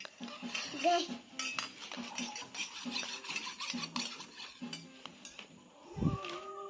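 A spoon stirring a drink, scraping and clinking repeatedly against its container, over faint background music.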